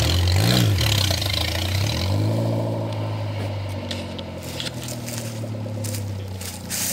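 Saturn SL1's four-cylinder engine running: a quick rev up and back down about half a second in, then revved up again around two seconds in and held at a steady higher speed, easing off near the end.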